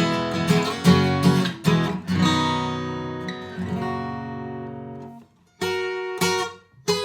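Larrivee L-02 acoustic guitar being strummed. Quick chords give way to one chord left ringing and fading for a few seconds. After a brief break come two more strummed chords, damped just before the end.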